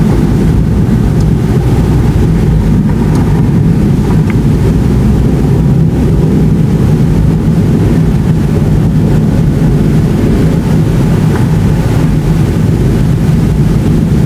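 Continuous distant thunder from a supercell thunderstorm: a deep, unbroken rumble at a steady level with no separate claps. It runs on without a break because the storm's lightning is so frequent.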